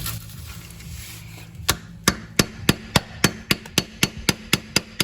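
A run of sharp, evenly spaced clicks or taps, about four a second, starting about one and a half seconds in, over a low steady hum.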